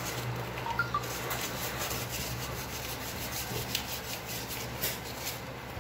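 Scratchy rubbing and rustling as a child handles something with his hands, with many light scattered scratches and clicks.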